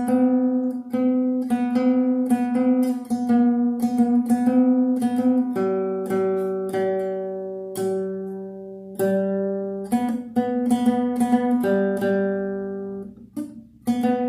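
Acoustic guitar being tuned by ear: single strings are plucked again and again, the third string fretted at the fourth fret compared with the open second string while its tuning peg is turned up to match. About halfway through, the plucked notes drop to a lower pitch and alternate with the higher one.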